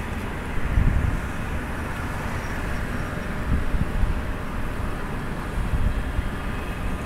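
Steady outdoor city rumble of road traffic, with low gusts of wind buffeting the microphone about a second in and again a few times later.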